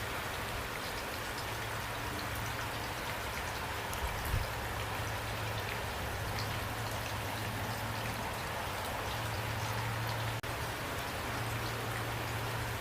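Steady rain falling, with individual drops ticking on a surface over an even hiss and a low rumble underneath.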